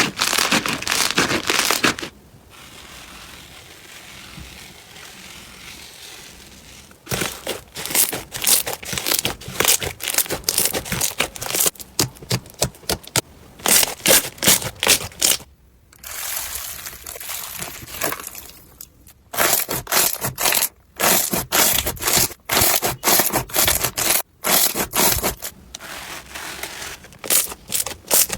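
Slime being squeezed, poked and pressed by hand, making dense crackling and popping; there is a quieter, softer stretch of a few seconds near the start, and the sound changes abruptly several times.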